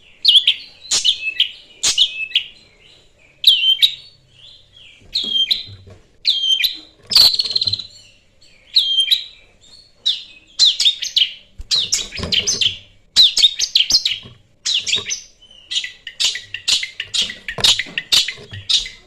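Long-tailed shrike singing loud, harsh chattering phrases, each repeated about once a second, quickening into a fast run of notes near the end.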